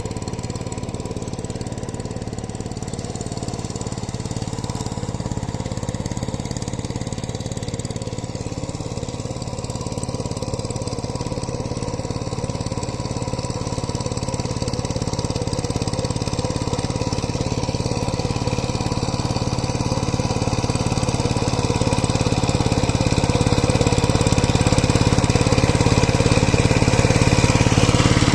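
Power tiller engine running steadily, growing gradually louder toward the end.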